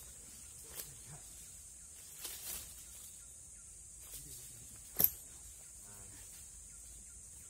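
Steady high drone of insects in the forest, with a few soft footfalls in dry leaf litter. About five seconds in there is one sharp knock as the unrunning chainsaw is set down on the log.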